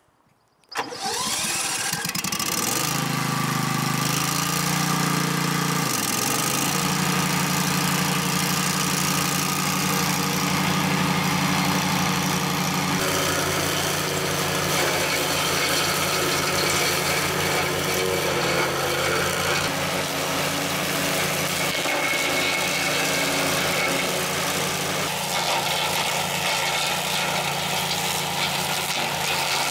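Combustion engine of an agria 9500 remote-controlled track mower, which drives a generator for its electric track motors, running under load while its underbody blade mows tall grass and scrub. The sound comes in under a second in, the engine note rises over the next couple of seconds, dips briefly about six seconds in, and then holds steady.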